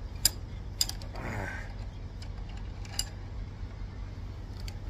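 Metal clicks from a wrench working the forcing screw of a three-jaw bearing puller on a motor shaft: three sharp ones, about a quarter second in, just under a second in and at three seconds, with a short rasping creak in between. A steady low hum runs underneath.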